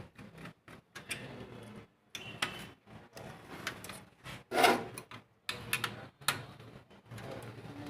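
Handling of a laser printer's plastic gear assembly during disassembly: scattered clicks and knocks of plastic parts and tools, with one louder knock about halfway through.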